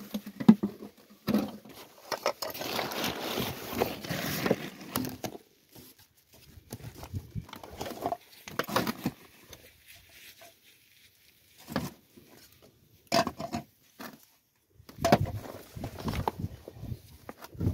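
Crackling and rustling of thick clear plastic sheeting being handled and unrolled, with scattered sharp clicks and knocks from handling gear. The sound comes in irregular bursts with quiet gaps between.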